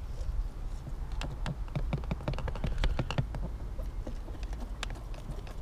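A quick run of light clicks and taps as a metal knife prises at the sticking lid of a small plastic pot, thickest between about one and three and a half seconds in. A steady low wind rumble sits on the microphone underneath.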